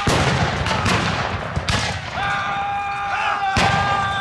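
Black-powder blank gunfire from a re-enactment battle. Three sharp shots come under a second apart, then a fourth about two seconds later. A long, high held shout rises over the later shots and falls away at its end.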